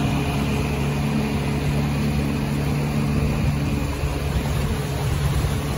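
Evinrude outboard motor running steadily with the boat under way, over a steady rush of wind and water.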